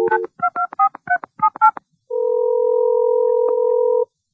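Telephone dialing: the dial tone cuts off and a quick run of touch-tone keypad beeps follows. After a short pause comes a steady ringback tone of about two seconds as the call rings through.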